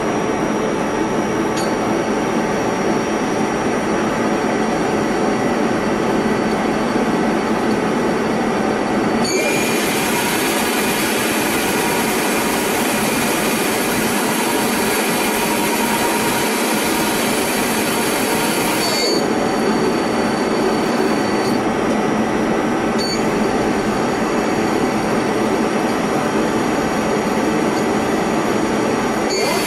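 Mazak Multiplex CNC lathe running: a steady machine drone with thin high whines. The whines change pitch about a third of the way in and again about two-thirds in, with a louder hiss in between.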